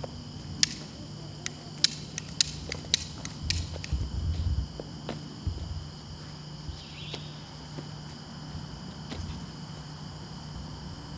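Insects droning steadily in the background as two unbroken high tones, with a scattering of sharp clicks and knocks in the first few seconds and a brief low rumble about four seconds in.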